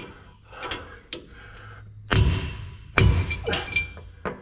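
Hammer blows on a steel socket extension set against a pinion bearing race in a GM 10-bolt rear axle housing, driving the race out. Two hard metallic strikes about two and three seconds in, with lighter knocks and clinks between and after them.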